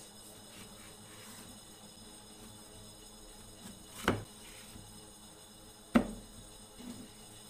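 Two sharp wooden knocks as the small pine box is handled and set against its wooden base, about four seconds in and again, louder, about six seconds in, with a faint third tap just after. A faint steady hum lies underneath.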